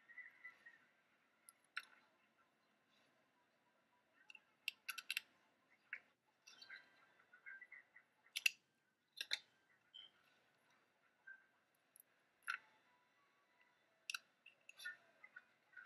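Quiet, scattered clicks and taps of paper pieces and small crafting tools being handled, with stretches of near silence between them.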